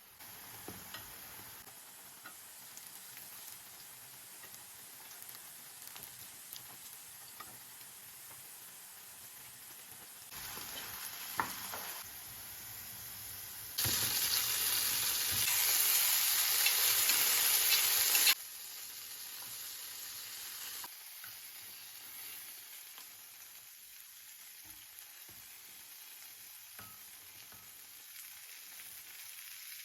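Food sizzling as it fries in a pan, with a few light knocks. The sizzle gets much louder for about four seconds in the middle, then drops back to a softer steady hiss.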